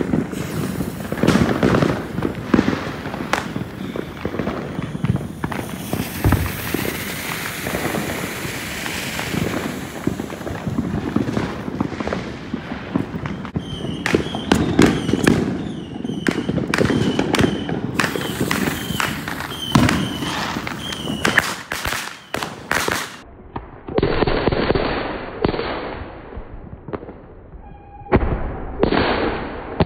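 Fireworks and firecrackers popping and crackling: many sharp bangs close together over a continuous hiss. Near the end the sound turns to steadier stretches of hissing.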